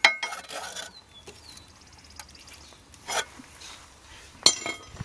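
Metal clinks and scraping from a crowbar prying at the starter: a ringing clink at the start and a sharper ringing clink about four and a half seconds in, with faint tapping between.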